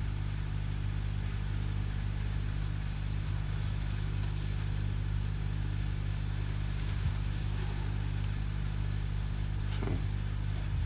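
Steady low mains hum and hiss of an old television soundtrack, with no other clear sound.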